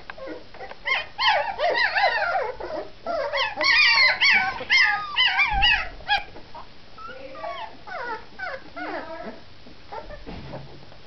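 Young Bergamasco puppies, 19 days old, whimpering and whining: several short, wavering high cries overlapping, loudest and densest in the first half, then fewer and quieter cries.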